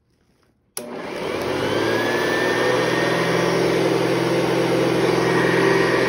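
Hoover Convertible U4315 upright vacuum cleaner switched on with a click about a second in, its motor spinning up with a rising whine and then running steadily.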